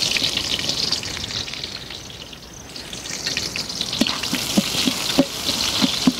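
Onion frying in hot ghee and oil with whole spices, a steady sizzle that eases a little about two seconds in and then picks up again. From about four seconds in, short knocks of a ladle stirring against the aluminium pot.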